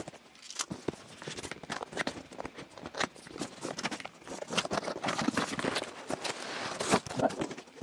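Cardboard box being cut open with a box cutter and then pulled apart by hand: irregular scrapes, rustles and clicks of knife and cardboard.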